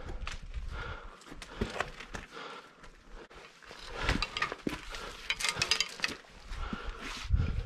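Climbing on a granite face fitted with steel staples and a chain: irregular scrapes, knocks and clicks of gloved hands and boots on rock and steel, with a quick cluster of sharp clicks about five and a half seconds in.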